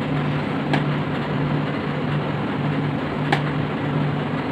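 Steady machine-like hum and hiss with a low drone pulsing on and off at an even beat, and two light clicks, about a second in and again near the end, as a knife scores a sheet of set dark chocolate.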